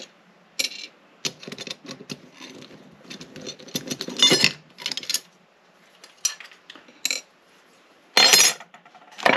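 Small metal clicks and clinks as the faceplate screws are taken out of a storefront latch and the metal parts are handled, with a louder clatter near the end.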